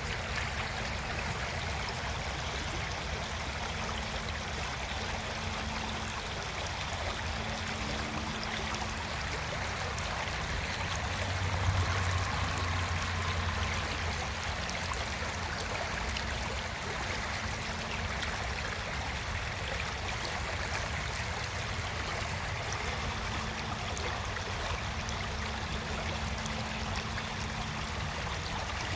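Creek water flowing steadily over rocks, an even, continuous sound, with a brief low rumble about twelve seconds in.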